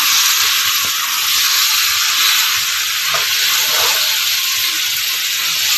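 Steady hiss of steam from a steamer pot boiling on the stove.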